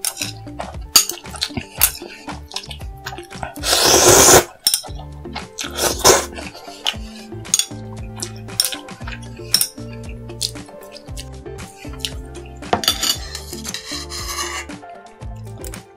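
Eating sounds: utensils clinking against dishes, with a few short loud noisy bursts of eating about four, six and thirteen seconds in, over background music with a steady low bass beat.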